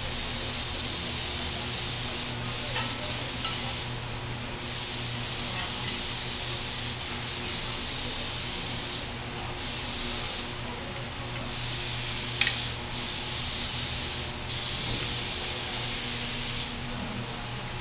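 Repeated bursts of hissing spray, each a second or two long, starting and stopping sharply, over a steady low hum of workshop machinery. A single sharp click about twelve seconds in.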